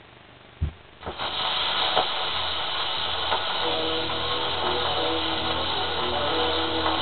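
Two sharp clicks, then a hissy, narrow-sounding old recording starts playing about a second in. Quiet music of held notes comes in a few seconds later, as the recording's intro.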